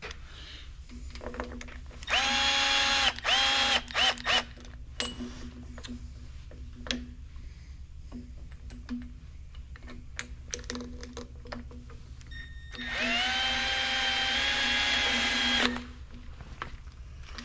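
Power drill spinning in the long bolts of a 12-valve Cummins injection pump bracket, snugging them rather than torquing them: three short bursts about two seconds in, then a longer run of about three seconds near the end, the motor whining up to speed and holding steady. Light clicks of tools being handled in between.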